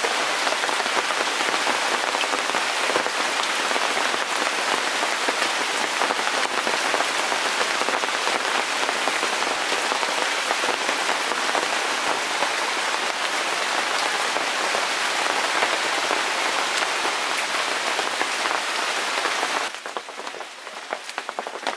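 Steady rain, an even dense hiss of drops falling on leaves and surfaces. It drops away sharply about two seconds before the end.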